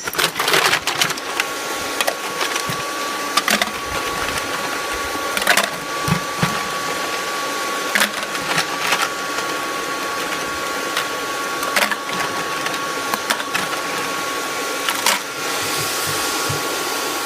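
Hairdryer blowing air into a charcoal forge, running steadily with a thin whine, with frequent sharp clicks and crackles over it.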